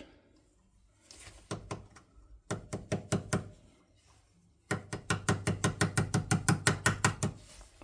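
Sharp, rapid tapping on the small parts of an old door-latch lock being reassembled. It comes in a few scattered knocks, then a short burst, then a steady run of about six taps a second that stops shortly before the end.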